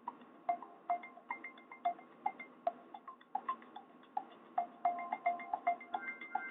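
A Nokia Asha 203 ringtone playing through a Nokia 216's small phone speaker: a quick melody of short notes, about three a second, thin and without bass.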